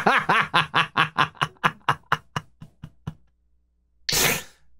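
A man laughing hard, a rapid run of 'ha' pulses about five a second that trail off around three seconds in, followed by a short noisy breath about four seconds in.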